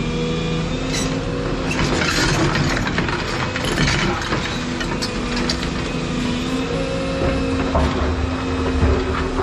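Volvo 235EL excavator's diesel engine running under hydraulic load, its note shifting as the machine works. From about two to five seconds in there is gritty scraping and clicking as the bucket levels gravel.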